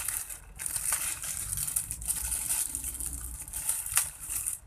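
Handling noise from computer-case accessories: rustling packaging with a few light clicks of small parts being handled.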